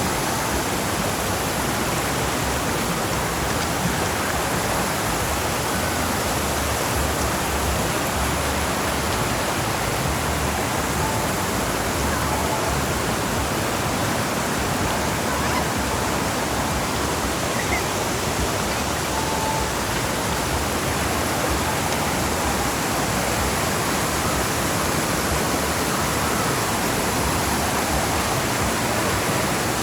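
Forest stream, water rushing and splashing in a steady, unbroken hiss.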